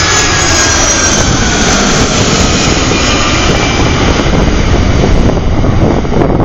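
Boeing 767-300ER twin jet passing close by: loud engine noise with high whining tones that fall in pitch as it goes past, the high whine thinning out near the end.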